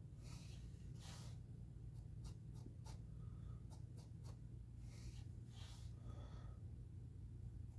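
Soft swishes of a fine paintbrush laden with thinned wash stroking across a plastic model ship hull, with a few light ticks in the middle, over a faint steady low hum.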